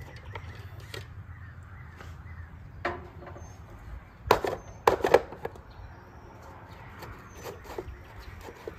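Sheet-metal engine cover of a Poulan riding mower being worked loose: scattered knocks and clanks, the loudest a quick cluster about four to five seconds in, over a steady low rumble with a few faint bird chirps.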